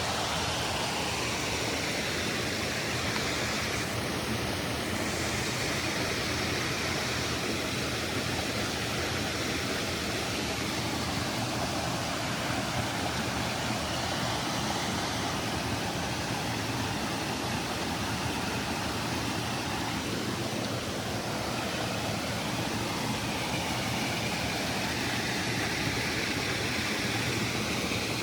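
A creek swollen by heavy rain, its water rushing steadily in a constant, even wash of noise.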